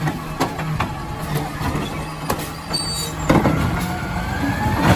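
Automated side-loader garbage truck working at the curb: its diesel engine runs steadily while the mechanical arm empties and sets down a wheeled bin, with several sharp clanks. A rising whine comes in about three seconds in.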